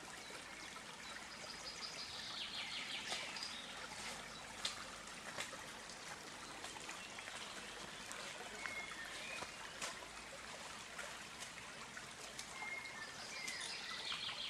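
Steady flowing stream water, with birds chirping and whistling over it now and then, most busily about two seconds in and again near the end.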